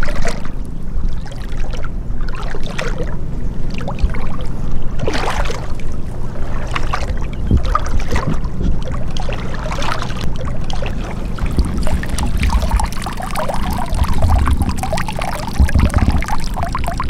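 Water sloshing and trickling, with irregular splashes and a steady low rumble beneath.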